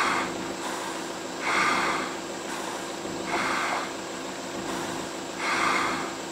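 Sloth bear sucking up termites and insects from the ground with its snout: four loud, breathy sucking draws about two seconds apart. A steady low hum runs underneath.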